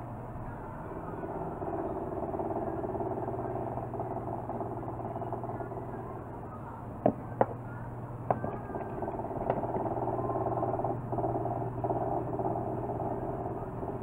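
A steady mechanical drone with a low hum runs throughout. About seven seconds in come two sharp clicks close together and another about a second later: hard parts knocked on a wooden workbench.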